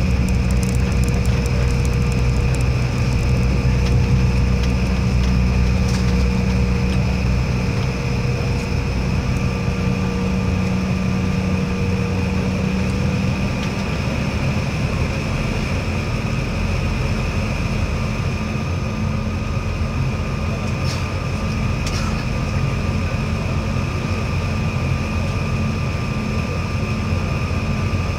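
Airliner engine and cabin noise heard inside the cabin as the plane slows on the runway after landing. A deep rumble eases off over the first several seconds, over a steady hum with a few high, whining tones, one of which fades out about halfway. A few faint clicks.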